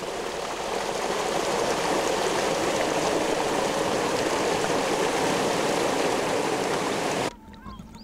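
Irrigation water pouring out of a concrete pipe outlet into an irrigation channel, a steady rushing gush that cuts off suddenly near the end.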